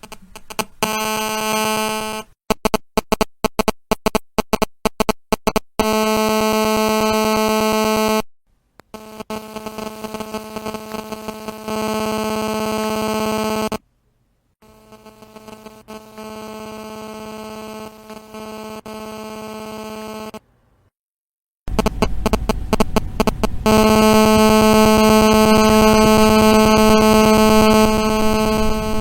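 Mobile phone interference: the GSM buzz of a phone's transmission bursts picked up by audio equipment. It is a harsh buzz that comes in stretches of rapid pulsing and stretches of steady tone, cutting out suddenly and starting again several times.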